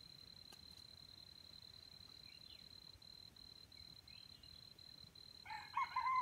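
A steady high-pitched insect whine over a quiet background, with two faint chirps in the middle; near the end a chicken gives a few short calls that rise and fall in pitch.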